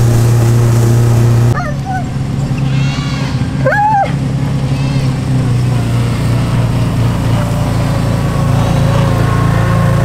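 Kawasaki Teryx side-by-side UTV's engine running steadily while towing a rope-tied bundle of cut cedar trees, with an ATV engine behind it. A couple of short animal cries come through about two and four seconds in.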